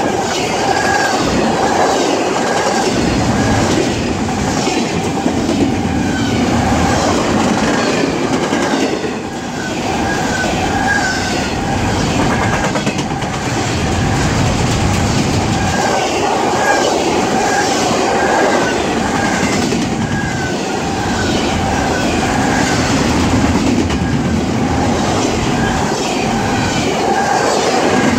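A CSX double-stack intermodal train's well cars rolling steadily past at trackside, wheels clacking over the rail joints in a steady loud rumble. A short high wheel squeak repeats at an even pace throughout.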